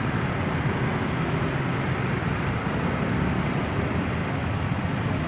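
Steady road-traffic noise, a constant low rumble of motor vehicles running close by.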